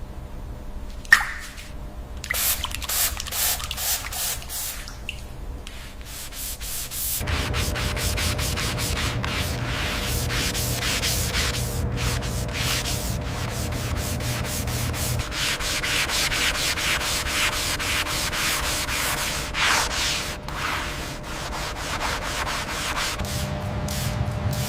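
Rapid repeated rubbing strokes of sanding on a surface, loose at first and then dense and continuous from about seven seconds in, over a faint steady hum.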